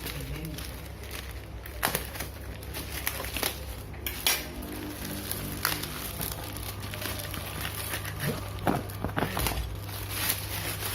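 Hands opening a plastic courier package: scattered crackles, clicks and taps of the wrapping being handled, over a steady low hum.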